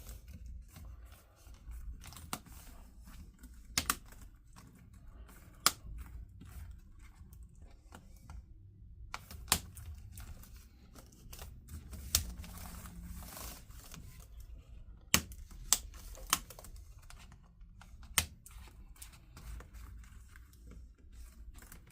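Sporadic sharp clicks and taps of plastic laptop parts being handled, with light rustling between them.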